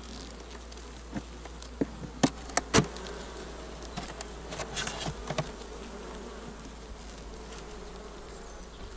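Honey bees humming steadily over an open hive, with a few sharp clicks and knocks of a metal hive tool levering the wooden frames apart, the loudest two or three seconds in.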